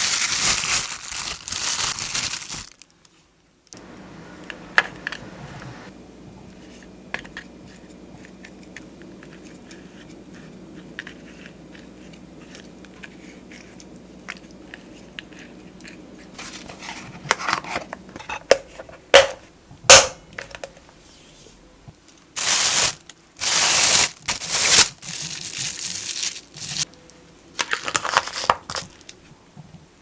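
Plastic bag crinkling as it is handled, then a quieter stretch of faint ticks from wooden chopsticks against a plastic ice cube tray over a low steady hum. Near the end come louder bursts of crinkling and several sharp clicks, the sharpest about 20 seconds in.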